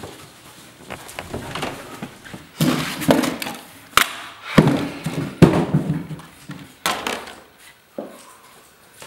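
Objects being handled on an office desk: irregular thunks, knocks and rustles, with one sharp click about four seconds in as a stapler is handled.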